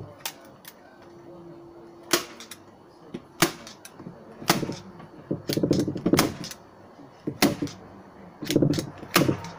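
Hand staple gun snapping staples through vinyl into a wooden trim panel: about eight sharp clacks, a second or so apart, with vinyl rustling between some of them as the covering is pulled tight.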